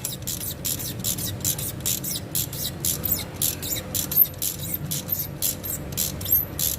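Ratchet wrench clicking, about five clicks a second, as a new glow plug is screwed into a diesel engine, over a low steady hum.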